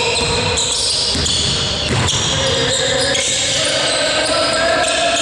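A basketball bouncing on an indoor court floor, a few sharp knocks that echo in a large sports hall.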